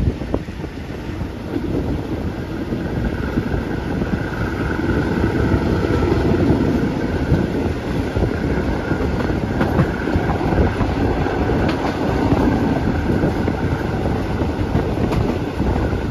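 Passenger train running along the track, heard from on board: a steady rumble of wheels on rails with a faint high tone and occasional clicks over the rail joints.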